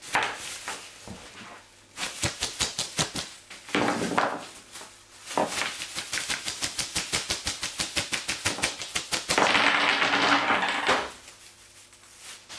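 Rice grains and small objects clicking and pattering onto a hard tabletop as a clear plastic bag holding them is shaken, in quick runs of clicks. About nine seconds in comes a louder, longer rush of plastic-bag rustling as the bag's contents of pebbles, shell pieces and paper scraps spill out.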